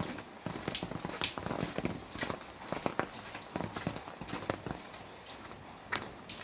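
Rain falling, with many irregular sharp taps of drops hitting nearby surfaces.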